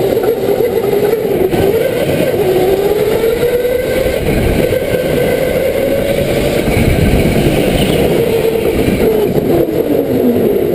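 Go-kart running at speed, heard from onboard. Its motor note rises along the straights, dips about two and a half seconds in as it slows for a corner, and falls away again near the end.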